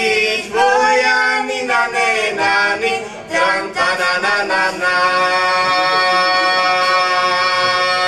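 Unaccompanied singing by a trio of young voices, two boys and a girl, ending an Istrian folk song: a few short sung notes, then a long held final chord from about five seconds in.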